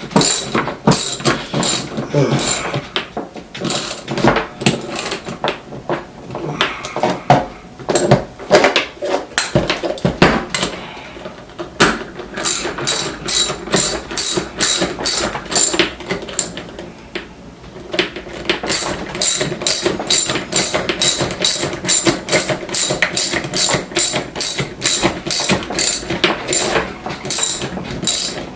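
Ratcheting skate tool tightening the axle nuts on roller skate wheels: rapid clicking of the ratchet, uneven at first, then after a short pause a steady run of about three clicks a second.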